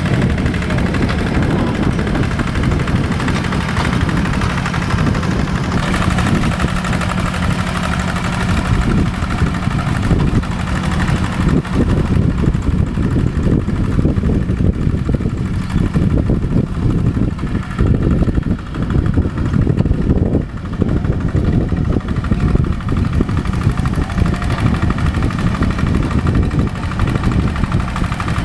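Rice-field tractor engine running steadily at a constant pitch, with brief dips in level about two-thirds of the way through.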